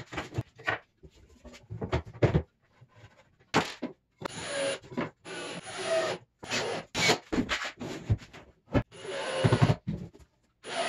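Cordless drill driving screws into a drawer's slides in several short bursts, between knocks and rubbing as the plywood drawer and metal slide rails are handled and fitted.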